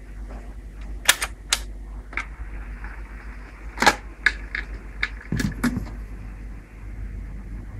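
Sharp mechanical clicks and clunks of the record player's automatic tonearm mechanism as the arm lifts off its rest and swings over onto a 78 rpm record, about nine clicks between one and six seconds in, over a steady low hum.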